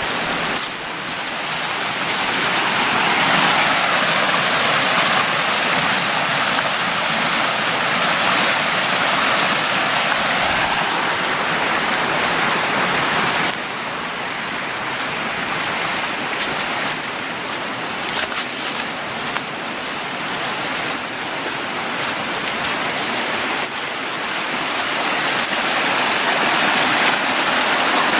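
Rushing, splashing water of a small waterfall, a steady dense hiss that drops in level and changes character about halfway through.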